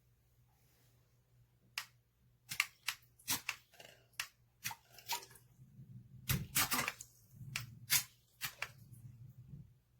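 A run of irregular sharp clicks and taps, denser and louder in the second half, over a low steady hum.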